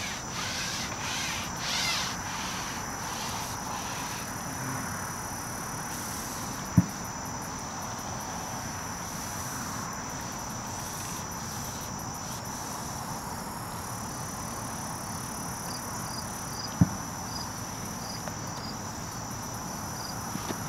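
Insects trilling, one steady high-pitched note without a break. Two sharp knocks stand out, one about a third of the way in and one late, and faint regular high ticks join in near the end.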